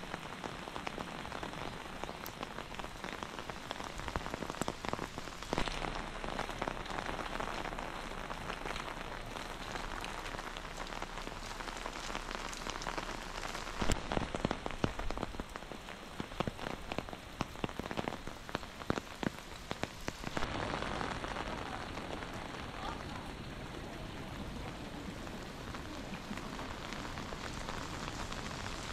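Heavy rain falling steadily on wet stone paving and roofs, an even hiss with many scattered drops ticking close by. The sound shifts abruptly a few times.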